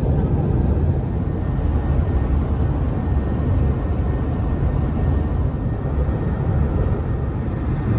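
Steady low road and engine rumble of a vehicle cruising on a highway, heard inside the cabin.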